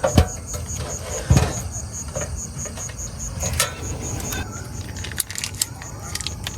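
Scattered sharp knocks and clicks of things being handled, over a steady low rumble, with a high thin chirp pulsing about four times a second behind them.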